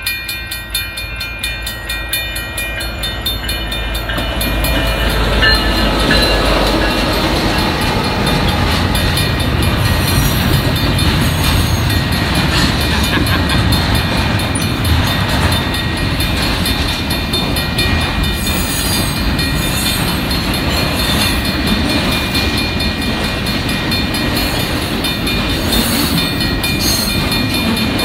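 Railroad crossing bell ringing, then a Union Pacific double-stack intermodal freight train arriving about four seconds in. The train's rumble and wheel clatter on the rails swell up and run on steadily and loudly as the container cars pass.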